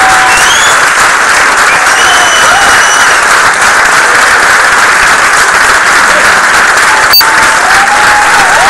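Large audience applauding loudly and steadily, with a few voices calling out over the clapping and a single sharp click about seven seconds in.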